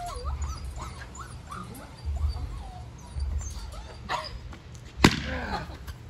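A rubber balloon bursts with a single sharp pop about five seconds in, the loudest sound here. Around it, a dog whines and yips in short rising-and-falling cries.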